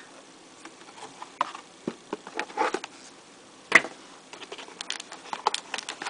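Cardboard packaging and a plastic bag being handled: scattered light taps and crinkles, with one sharper click a little before four seconds in and quicker crinkling near the end as the bagged phone is picked up.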